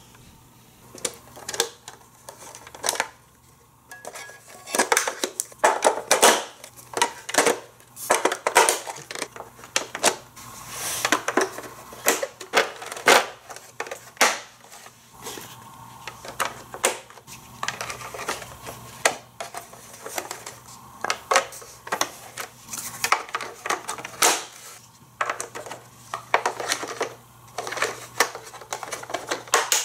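Hard plastic toy track pieces being handled and clicked into the blue central hub of a Hot Wheels Criss Cross Crash set: irregular clicks and clacks of plastic on plastic.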